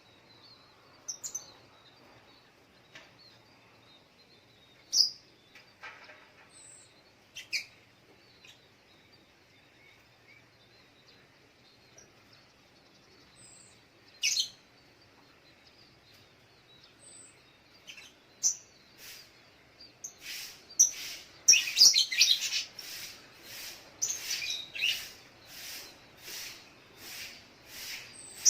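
Brown-throated sunbird (sogok ontong) calling: scattered single high chirps at first, then, about two-thirds of the way in, a fast, louder run of chirps at about two a second.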